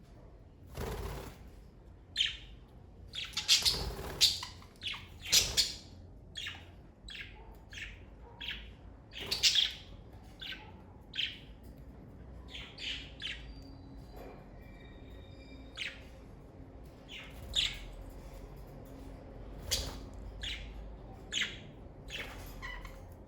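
Pet budgerigars chirping in many short, irregular calls, with a few thin held whistled notes about two-thirds of the way through.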